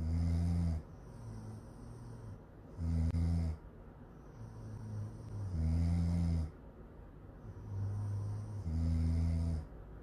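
A sleeping young woman snoring: four loud, low snores about three seconds apart, one on each breath, with softer breathing sounds between them.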